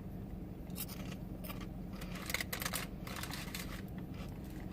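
Scattered short crackles and crunches from eating chips out of a bag, over a steady low hum inside the car.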